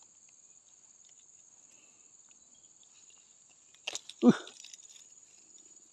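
Insects chirring steadily at a high pitch. About four seconds in there is a sharp click, then a brief, loud, low grunt-like sound.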